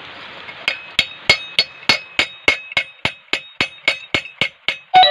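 Small hand hammer striking a polished metal mug held on an iron rod, a quick even run of ringing metallic taps, about three a second, starting a little under a second in. The strikes are hand-hammering a dimpled decorative finish into the mug's surface.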